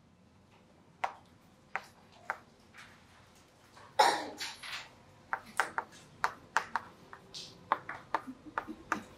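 Chalk clicking and scraping on a chalkboard as words are written: a few sharp clicks in the first seconds, a louder half-second noise about four seconds in, then a quick run of several clicks a second.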